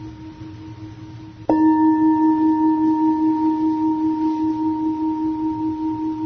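A Tibetan singing bowl is struck once about a second and a half in, over the fading ring of an earlier strike. It rings on with a low, wavering main tone and fainter higher overtones that slowly die away: the bell stroke that marks a change of stage in the meditation.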